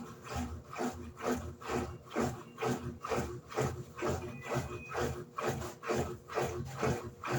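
Electrolux LED14 washing machine agitating its load: water and clothes swishing back and forth in the tub, about two strokes a second.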